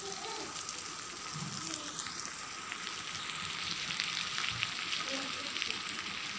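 Marinated fish pieces shallow-frying in hot oil in a pan: a steady sizzle with fine crackling spits, a little busier past the middle.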